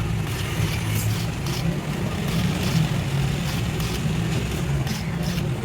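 A steady low engine-like hum with scattered short clicks and taps over it.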